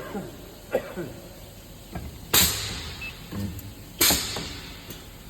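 Projection welding machine cycling: two loud sudden bursts about a second and a half apart, each with a hissing tail that dies away within about half a second, over a low steady hum.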